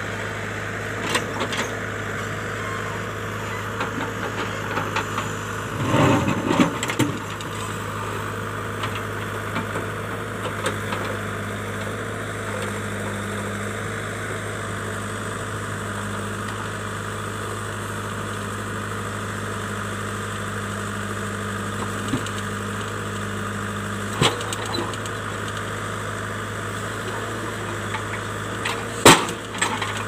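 JCB backhoe loader's diesel engine running steadily while the backhoe digs in rocky ground. A burst of clattering knocks comes about six seconds in, a single knock later on, and a sharp, loudest knock near the end, as the bucket strikes and moves rock.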